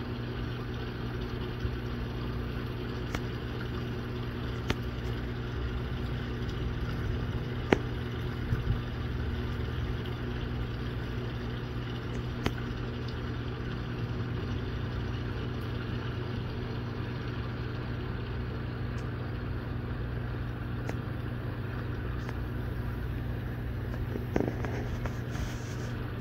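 Steady drone of running machinery: an even low hum that holds the same pitch throughout, with a few brief sharp clicks scattered through it.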